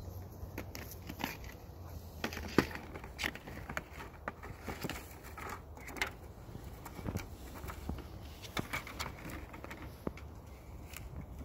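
Saint Pyrenees puppy rooting in garden flower pots: irregular clicks, knocks and rustles of its muzzle and mouth against the pots and the soil.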